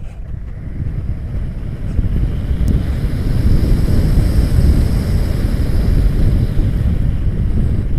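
Airflow buffeting the microphone of a small HD camera mounted in an RC glider's canopy in flight: a loud, low, rushing wind noise that builds over the first few seconds.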